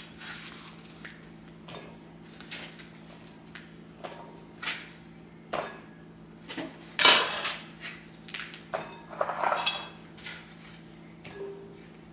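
Irregular kitchen clatter of knife, cutting board and bowl as thickly sliced onions and lemons are handled: scattered knocks and clinks, with one loud clatter about seven seconds in and a run of ringing clinks around nine to ten seconds.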